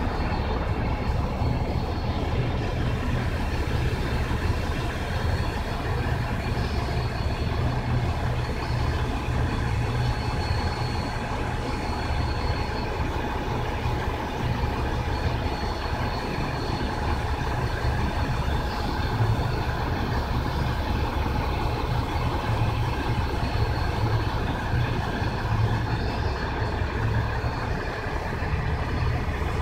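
A steady low rumble, with a faint thin high whine that fades in and out: the distant electric motor and propeller of a small RC model plane in flight.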